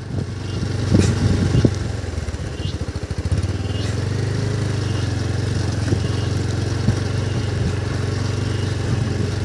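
Motorcycle engine running steadily: a continuous low hum, with a short stretch of fast throbbing about two to three seconds in.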